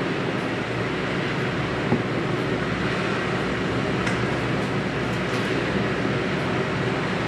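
Boeing 787-8's Rolls-Royce Trent 1000 turbofans running at low taxi power as the airliner rolls along the taxiway, a steady jet rush.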